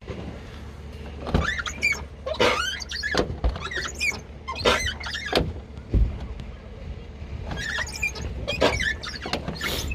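Car door swung back and forth, its door check strap (limiter) squeaking in about three drawn-out, wavering squeals with a few dull knocks: the dry check strap needs lubricating.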